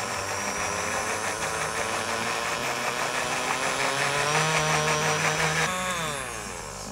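Electric countertop blender running steadily, puréeing raw oysters with their juice and olive oil, its motor pitch creeping slightly upward. Near the end it is switched off and spins down with a falling whine.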